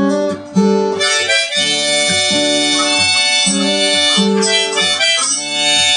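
Harmonica playing held chords over an acoustic guitar, the chords changing about once a second: the instrumental intro before the singing comes in.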